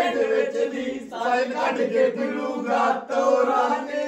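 Men's voices singing and chanting together, with a steady held tone underneath the voices.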